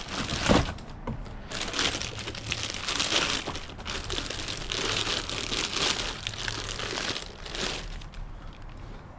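Plastic bag crinkling and rustling on and off as a new water pump is pulled from its box and unwrapped.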